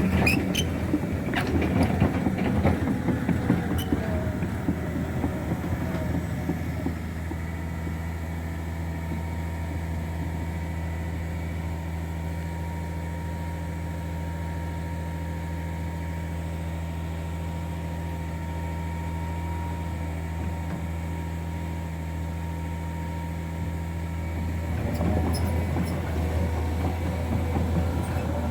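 Heavy diesel machinery running with a steady low drone. It works harder and louder for the first few seconds and again near the end, and settles to an even run in between.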